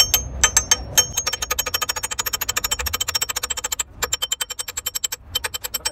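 Rapid, light metal-on-metal tapping, about ten taps a second, each tap with a bright ring. The tapping is a metal tool striking parts of a truck gearbox casing, and it stops briefly twice.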